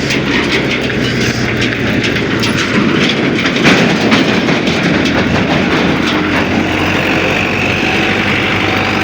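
Wind noise and the rattle of a bicycle riding over an uneven road, with many short clicks and a steady low engine hum underneath.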